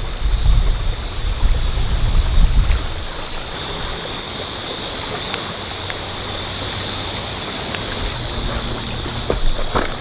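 Wind gusting on the microphone for the first few seconds, then the steady rush of a shallow river flowing, with a few sharp clicks.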